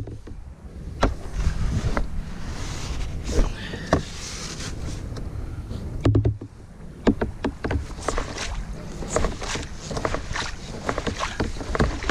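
Kayak paddling: paddle strokes with water splashing and dripping and small sharp knocks, coming thicker from about halfway through, over a low wind rumble on the microphone.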